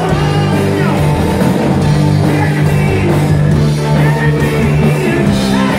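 Live rock band playing: distorted electric guitars, bass guitar and drum kit, with a male singer's vocal over them.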